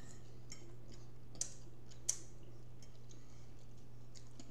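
Quiet eating sounds: a few sharp clicks, the loudest about a second and a half and two seconds in, and small ticks from a fork on a plate and chewing, over a steady low hum.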